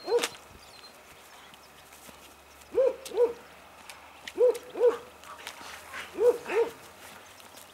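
A shepherd-type dog barking in quick double barks, woof-woof, the pairs repeating about every second and a half.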